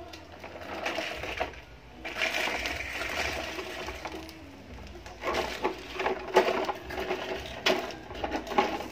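Large plastic toy dump truck pushed across concrete paving stones, its plastic wheels and body scraping and rattling. A run of sharp clacks comes in the second half.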